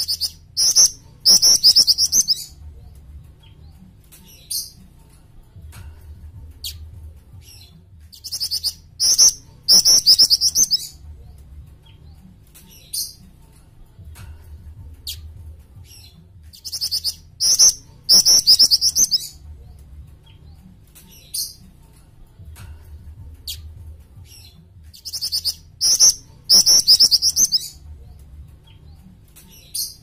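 A jing-jing, a Hemipus flycatcher-shrike, singing in four bouts about eight seconds apart. Each bout is a quick run of high chirps ending in buzzy, trilled notes. Single short chirps come between the bouts.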